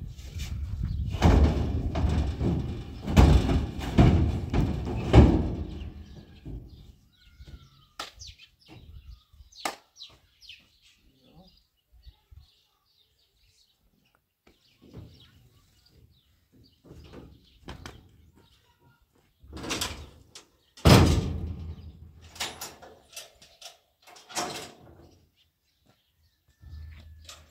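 Metal oil drums being shifted in a pickup's steel bed: a run of heavy thumps and knocks in the first six seconds, scattered clanks, then more loud bangs about twenty seconds in.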